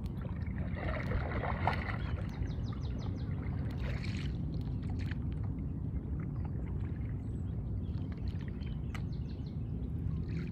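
A stand-up paddleboard paddle dipping and pulling through calm lake water, with a few swishing, splashing strokes over a steady low rumble.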